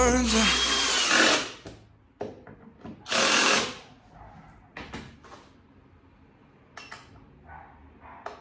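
Cordless drill-driver running in two short bursts of about a second each, near the start and around three seconds in, driving screws into the underside of an office chair seat, followed by scattered clicks and knocks of parts being handled.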